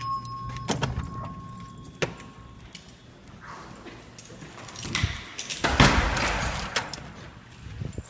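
A steady tone from a fire alarm voice-system speaker cuts off about two seconds in, with sharp clicks of a push-bar door. A louder clattering rattle follows around five to seven seconds in.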